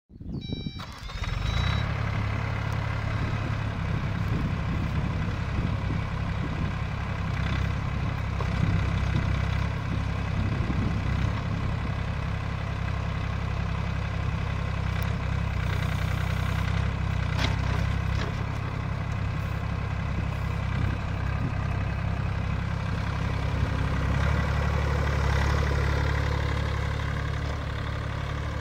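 Everun ERE18 1.8-ton mini excavator's engine running steadily while the boom and bucket are worked and the upper house slews, with a brief knock partway through.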